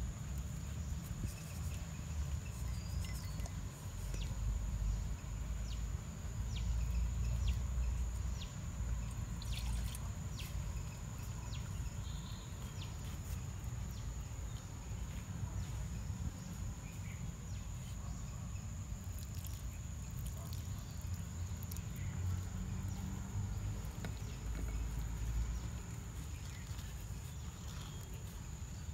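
Hands kneading and squeezing a crumbly rice-flour and grated-coconut dough in a clay pot, with soft scattered clicks and rustles over a steady low rumble.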